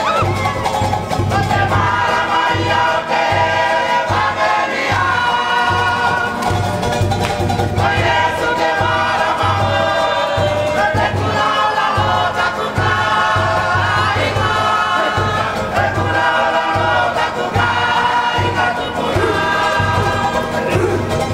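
Cook Islands kapa rima song: a large mixed choir singing loudly in harmony, backed by strummed ukuleles and guitars and a steady beat on a large roped wooden drum.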